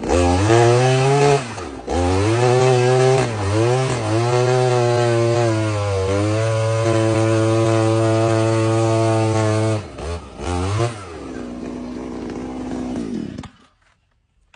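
Kamatsu KM 44 earth auger's small petrol engine revved up and down several times, held at high revs for about six seconds, then dropped to a lower steady idle and cut off near the end.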